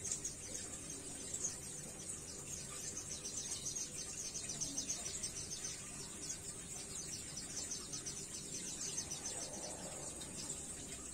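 Steady high-pitched trilling chirr of an insect such as a cricket, made of fast even pulses, over a faint low hum.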